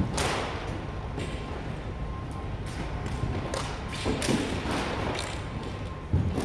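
Color guard flags and rifles being spun, tossed and caught over a carpeted floor: scattered knocks, taps and swishes, with a heavier thump near the end. A faint steady tone runs underneath.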